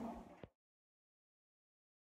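Near silence: faint room tone that ends with a small click about half a second in, then dead digital silence.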